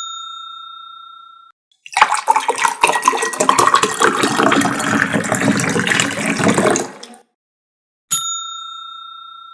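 A clear bell ding that rings and fades over about a second and a half, then about five seconds of rushing, splashing water that stops abruptly, then the same ding again near the end.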